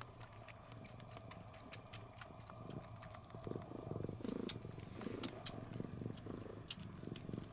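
Domestic cats purring, the purr swelling from about three seconds in, with faint quick smacking clicks as they suckle on fur and a fleece blanket, the kitten-like 'chupa-chupa' wool-sucking habit.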